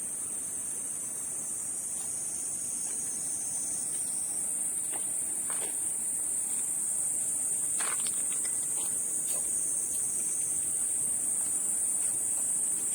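Steady high-pitched insect chorus buzzing without a break and growing slightly louder, with a few faint scattered clicks near the middle.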